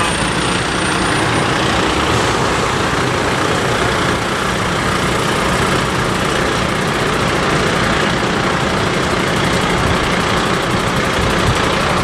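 Diesel engines of a column of fire engines idling steadily, with no siren sounding.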